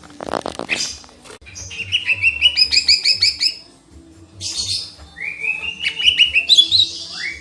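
Cica ijo singing in fast phrases of quick repeated chirps, two outbursts in a row, opening with a short harsh buzzy note.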